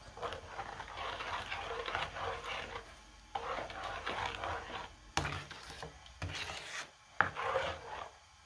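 A spatula stirring and scraping thick ube halaya (purple yam paste) around a large nonstick pan, in repeated scraping strokes about a second each. The utensil knocks sharply against the pan twice, in the second half.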